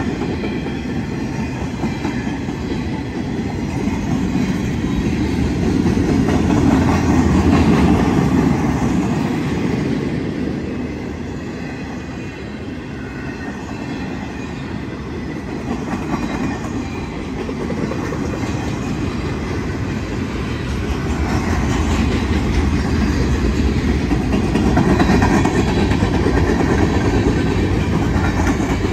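Freight train cars rolling past close by: a steady rumble of steel wheels on rail with clickety-clack over the rail joints, from flatcars and then gondolas. It swells louder twice, about a quarter of the way in and again near the end.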